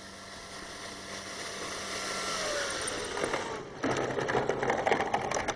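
Electric brushless motor of a radio-controlled Cessna 170 model whining steadily at low throttle, then winding down in pitch and fading about two and a half seconds in as the throttle is cut. From about four seconds in, a louder rustling noise with clicks.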